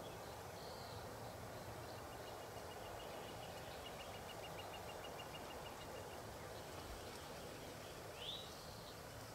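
Faint outdoor natural ambience with a steady hiss. A rapid, even high trill runs for about four seconds from two seconds in, and a single short, sharp bird call comes near the end.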